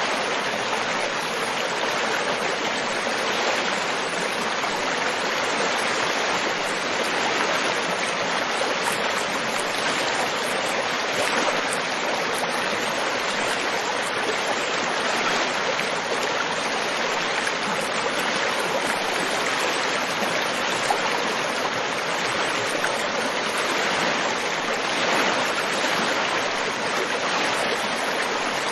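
River water flowing over rocks in a steady, even rush with no let-up.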